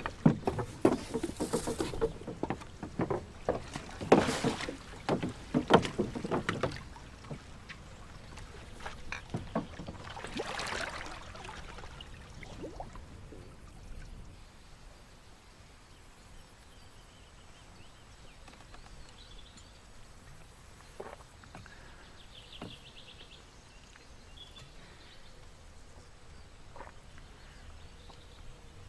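Rowboat on a still pond: a run of wooden knocks and water splashes in the first several seconds and another swell of water noise about ten seconds in, then calm water with a few faint chirps.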